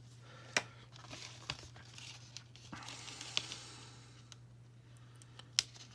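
Faint rustling and a few sharp little clicks of small doll clothes and their packaging being handled, over a low steady hum.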